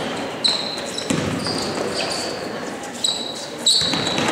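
Basketball game play: sneakers squeaking sharply on the court several times, with a few thuds of the ball bouncing, over crowd chatter in the gym.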